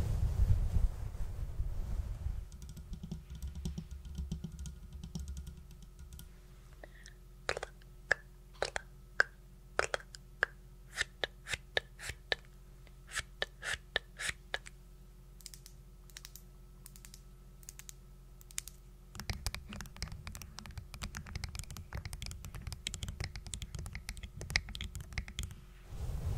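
Quick tapping and clicking close to the microphone in irregular runs, starting a few seconds in, some taps with a short ringing tone. A low rustling rumble runs at the start and again over the last third.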